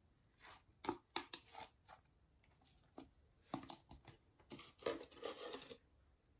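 Blue slime being pulled out of a small plastic container and dropped into a plastic bin of other slimes, making quiet sticky clicks and crackles. A short run of them comes about a second in, and a longer, denser cluster from about three and a half seconds to nearly six.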